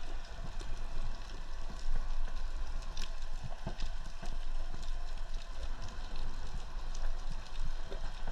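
Underwater ambience: a steady low rumble of moving water with irregular scattered clicks and crackles throughout.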